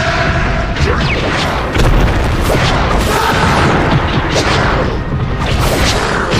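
Giant-hero fight sound effects: heavy booms and impact hits with whooshes, over background music, with the biggest hit about two seconds in.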